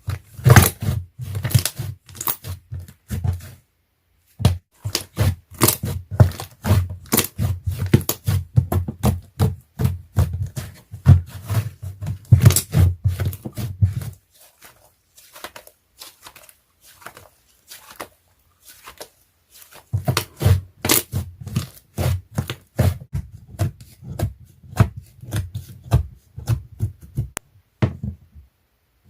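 Slime being squished and kneaded by hand, giving a rapid, irregular run of sticky clicks and pops with soft low thuds. It goes quieter for several seconds around the middle, then picks up again.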